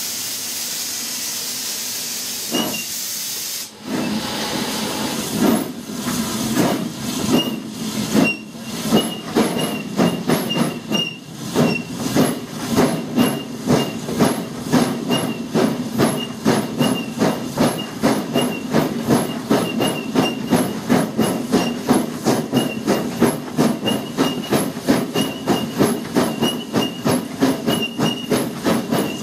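Peckett 0-6-0 industrial steam locomotive working hard: a steady hiss of steam for the first few seconds, then the exhaust beats come in, slow at first and quickening to about three chuffs a second. A thin high squeal recurs through the beats.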